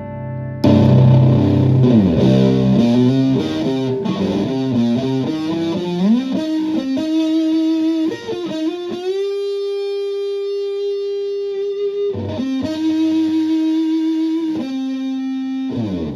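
Electric guitar played through a modified Violet Ram's Head Big Muff fuzz pedal with its scoop control. The fuzz comes in loud about half a second in on a chord, followed by bent and sliding single notes and long, sustained held notes.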